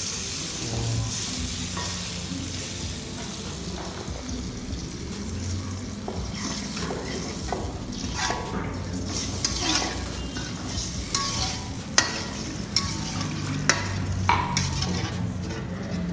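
Spice paste sizzling in hot oil in a pan while a spatula stirs and scrapes it, with a steady frying hiss and a run of sharp clinks and scrapes of the utensil against the pan in the second half.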